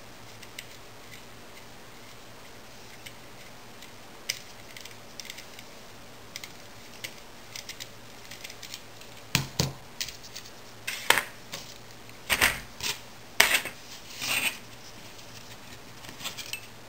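Small metal handling sounds: channel lock pliers and a small aluminium bending jig being worked while a keyboard spacebar wire is bent. A few faint ticks at first, then about halfway in a run of sharp metallic clicks and clacks.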